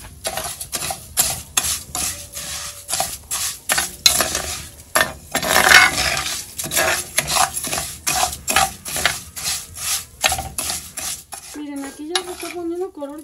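A spatula stirring dry rice as it toasts in oil in a clay cazuela: repeated scraping strokes, a few a second, with the grains rustling against the pot.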